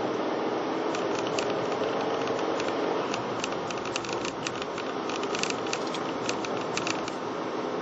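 Steady road and tyre noise of a car driving, heard from inside the car. Many small, sharp ticks and rattles are scattered through it, thickest in the middle stretch.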